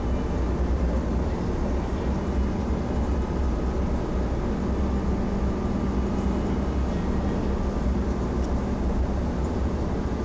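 Steady low rumbling background noise with a faint continuous hum, unchanging throughout and with no distinct events.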